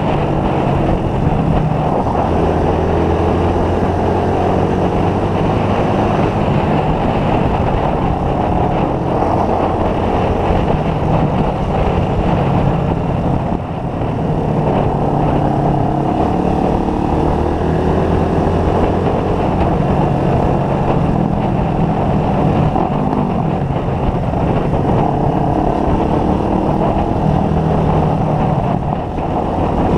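Motorcycle engine running under way, its pitch slowly rising and easing with the throttle, over steady wind and road noise. It eases off briefly about halfway through and again near the end.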